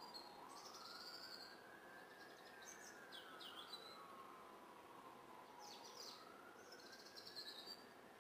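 Faint outdoor ambience: birds giving short high chirps now and then, over a distant siren wailing slowly up and down in pitch.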